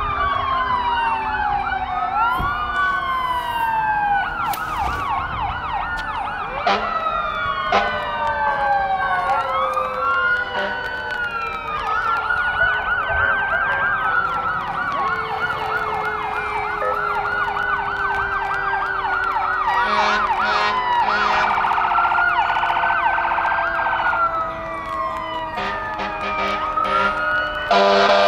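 Several fire truck and police car sirens sound at once, out of step: slow wails rising and falling, fast yelping warbles, and a low siren tone sinking slowly throughout. Horn blasts come in about twenty seconds in and again near the end.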